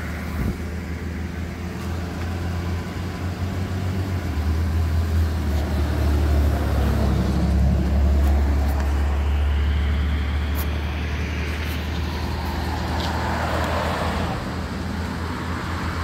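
Vehicle engine running close by, a steady low rumble that grows louder about four seconds in and eases off later.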